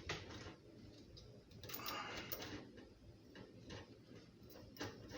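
Faint clicks and light rattling from handling faucet fittings, with a short stretch of rustling about two seconds in and one sharper click near the end.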